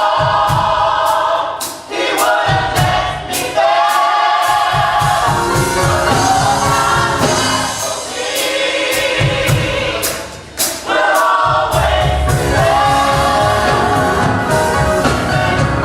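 Gospel choir singing with a live band: drums with cymbal hits and a bass line under the voices, the bass and drums dropping out briefly a few times.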